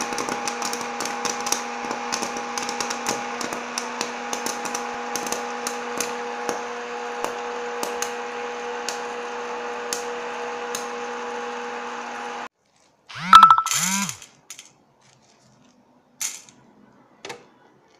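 Hot-air popcorn machine running, its fan and heater giving a steady hum, with scattered sharp pops of the last kernels. It is switched off about two-thirds through and stops suddenly. A brief loud scrape with a warbling squeak follows, then a couple of light knocks.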